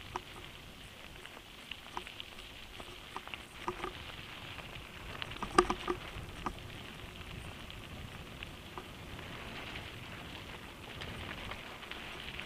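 Mountain bike tyres rolling over a loose gravel road: a steady crunching hiss with scattered sharp clicks and rattles, and a quick cluster of knocks about five and a half seconds in that is the loudest sound.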